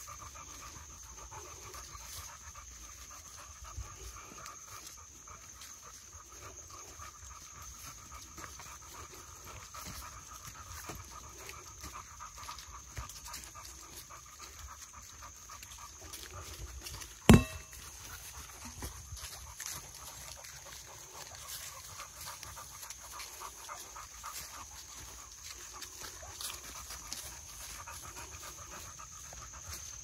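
Two boxer dogs panting as they walk, over a steady high-pitched whine in the background. A single sharp click stands out a little over halfway through.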